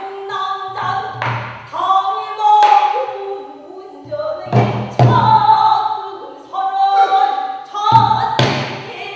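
Pansori singing: a solo voice holding and bending long notes, with low buk barrel-drum strokes in pairs about a second in, midway and near the end.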